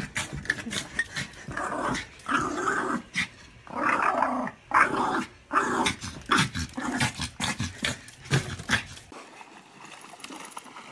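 A dog growling and barking in rapid bursts, stopping about nine seconds in.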